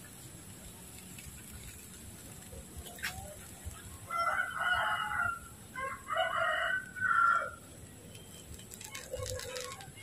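A rooster crowing: one long call in several parts, starting about four seconds in and lasting about three and a half seconds.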